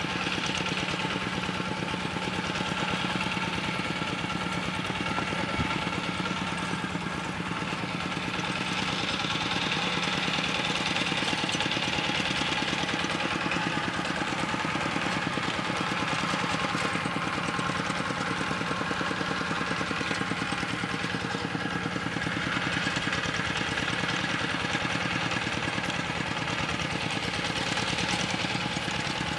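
Small engine running steadily at an even speed, a constant drone with a fast, regular firing beat.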